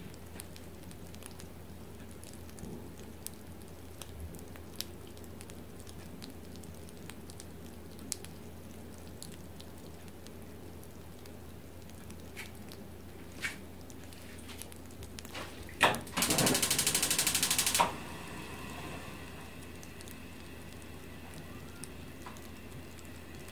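Freshly roasted peanuts cooling on newspaper, giving off sparse, small ticks and pops one at a time over a faint steady hum. About two-thirds of the way in, a loud buzz cuts in for nearly two seconds and stops.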